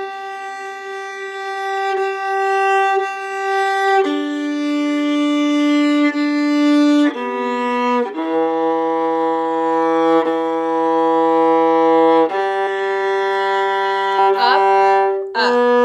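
Viola bowed (arco), playing long held notes that change pitch every few seconds, with a fainter lower note sounding under some of them. Near the end comes a quick run of short notes.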